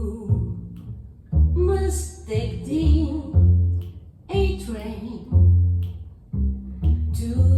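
Upright double bass playing plucked jazz notes, each one struck and ringing low, under a woman singing.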